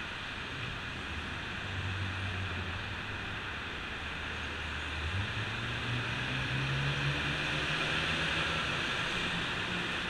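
Street traffic under an elevated expressway: a steady hiss of passing vehicles and air, with a tractor-trailer's diesel engine humming low and then stepping up in pitch about five seconds in, climbing as the truck pulls through the turn.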